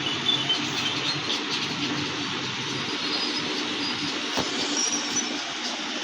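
Sonified space recording: a steady rushing hiss over a low hum, with faint high squeaking tones now and then and a single click about four and a half seconds in.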